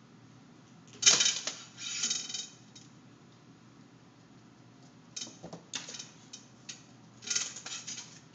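A kitten's toy rattling and clattering with a metallic jingle, in short bursts as it is knocked about: a sharp clatter about a second in, another a second later, a run of clicks a few seconds on, and a last jingling burst near the end.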